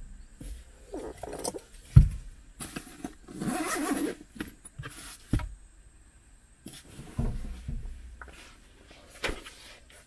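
Handling noises inside a parked car as a person shifts in the seat and gathers belongings: a sharp knock about two seconds in, a stretch of rustling around four seconds, then scattered clicks and thuds.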